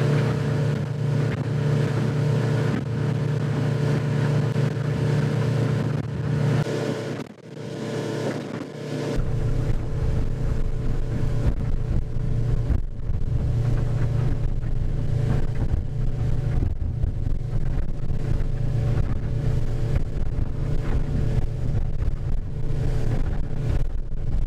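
Boat engine running steadily at cruising speed, heard from inside the pilothouse cabin while underway. The sound drops briefly about seven seconds in and comes back with more low rumble.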